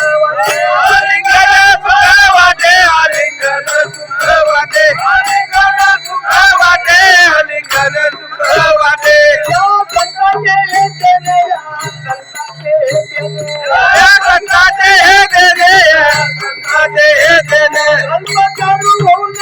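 An elderly woman singing a melody in a wavering voice with vibrato, over a steady low accompaniment.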